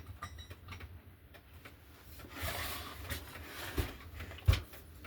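Small metal clicks and knocks of hand work on a chainsaw's clutch as it is screwed back on and forced tight against the piston stop, with a short scraping stretch a little past halfway and one sharp knock near the end.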